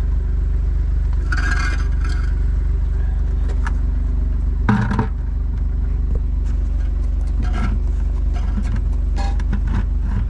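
Farm tractor engine running steadily at idle, with a few short scrapes and knocks over it.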